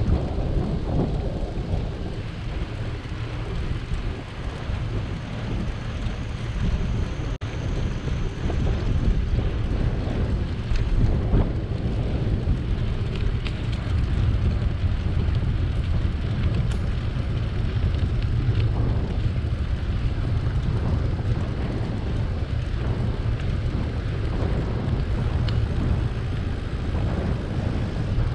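Wind buffeting the microphone of a camera on a moving bicycle: a steady, gusting low rumble.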